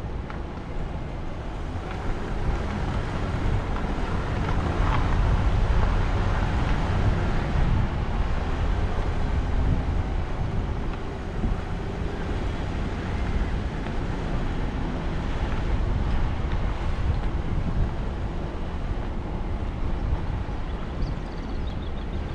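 A vehicle driving along a paved road: steady low road and engine rumble with wind noise on the microphone, growing a little louder a few seconds in.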